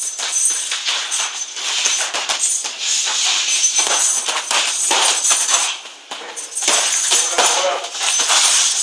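Kickboxing sparring: a rapid run of sharp slaps and smacks from gloves and kicks landing, over a steady rattling hiss.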